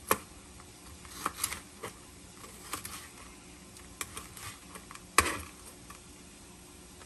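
Knife slicing cooked bacon on a plastic cutting board: irregular sharp knocks of the blade hitting the board, the loudest about five seconds in.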